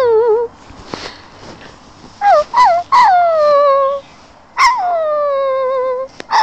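Dog whining: a string of high, pleading whines, each sliding down in pitch. There are two short ones about two seconds in and two longer ones held for about a second each.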